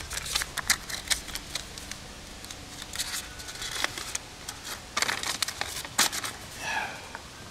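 Rustling and crinkling with scattered light clicks and scrapes as small items and paper are handled, loudest in a cluster about five to six seconds in.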